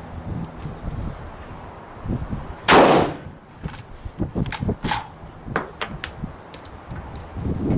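Thompson Center Compass .308 bolt-action rifle firing a single shot about three seconds in, very loud, followed by a few sharp metallic clicks as the bolt is worked to eject and reload.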